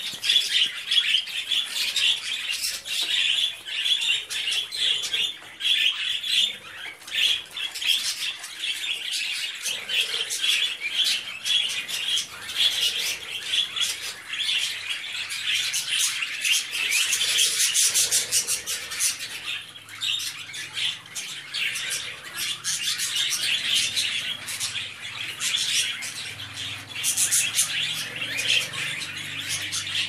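Pet budgerigars chattering without a break: a dense stream of rapid chirps, warbles and squawks.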